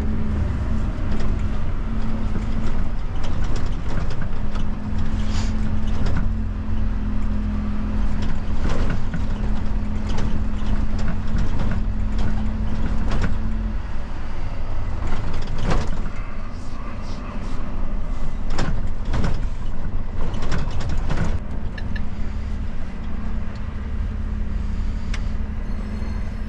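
Dennis Elite garbage truck driving, heard from inside the cab: a steady engine and road drone with scattered knocks and rattles throughout. The engine's held note drops away about halfway through.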